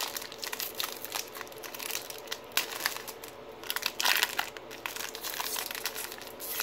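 Plastic-foil wrapper of a Topps baseball card pack crinkling in the hands and being pulled open, with a run of crackles and a louder rip about four seconds in.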